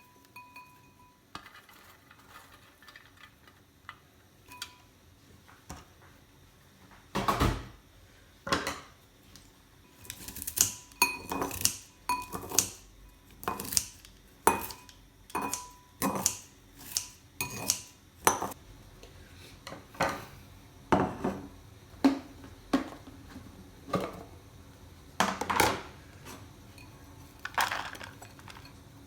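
Kitchen clatter of dishes and cutlery: after a quiet stretch, irregular clinks and knocks of utensils against dishes, about one or two a second.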